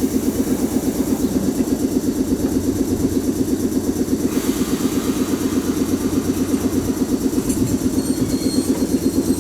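JR East 719 series electric train giving off a loud, rapidly pulsing drone, the abnormal 'jet sound' this unit is known for. A higher hiss joins about four seconds in.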